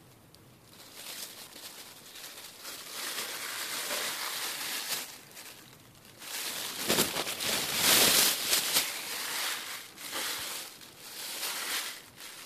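Thin black plastic dog-waste bag crinkling and rustling as a hand inside it grabs a wad of tissue and the bag is pulled inside out around it. The crinkling is loudest in the middle of the handling.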